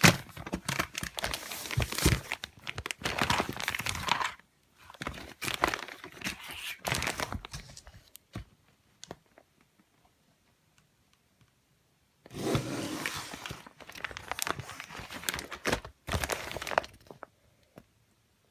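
Plastic or cellophane packaging crinkling and rustling as it is handled, in bursts with a nearly quiet stretch of about four seconds in the middle.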